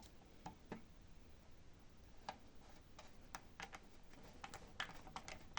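Faint, irregular small clicks of a screwdriver driving a mounting screw into a hard disk fitted in a DVR.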